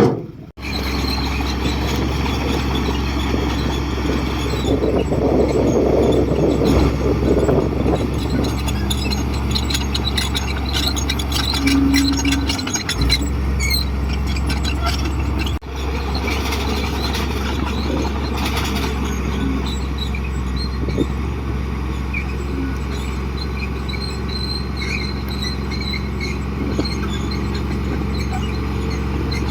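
Komatsu D58 crawler bulldozer's diesel engine running steadily under work, with many short high-pitched squeaks and clicks from its moving tracks and running gear over the engine sound.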